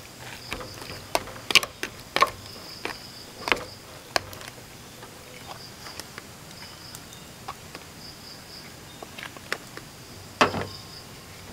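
Metal spoon clicking and scraping against plastic food tubs as raw chicken is stirred and flour is spooned over it. The sharp clicks come in a cluster over the first few seconds, with one louder knock near the end. Behind them runs a steady, high, pulsing trill of night insects, crickets.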